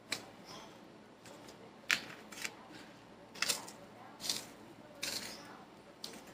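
A fork scraping a paper plate and breadcrumbs rustling as chicken is pressed and turned in the crumb coating: a series of short, scratchy scrapes about a second apart.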